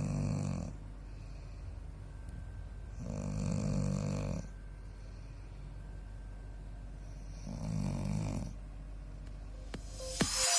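A man snoring in his sleep: three snores about four seconds apart, the first already under way, each a low buzzing rasp.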